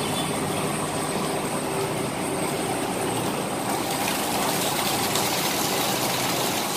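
Steady running din of a borewell drilling rig's diesel engine, mixed with the hiss of a gas cutting torch burning through the steel pipe at the bore hole.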